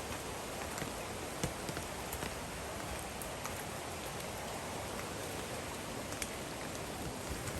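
Steady rain falling: an even hiss with scattered sharp ticks of single drops striking nearby.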